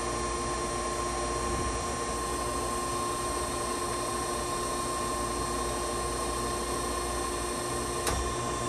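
Okamoto 1632 DX hydraulic surface grinder running: its grinding-wheel spindle and hydraulic system give a steady hum with a steady whine on top. A short click comes about eight seconds in.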